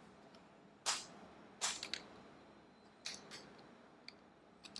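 Computer keyboard keystrokes: a handful of sharp, irregularly spaced clicks, with a quick run of them just under two seconds in.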